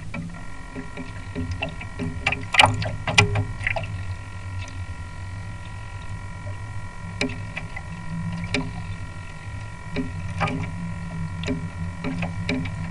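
Onboard sound of a Mini40 RC trimaran sailing through chop: a steady low rush of water along the hull, scattered sharp slaps and knocks (the loudest two about two and a half and three seconds in), and a steady high whine throughout.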